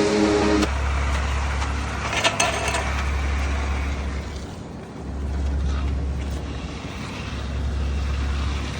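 Ready-mix concrete truck running with a steady low rumble.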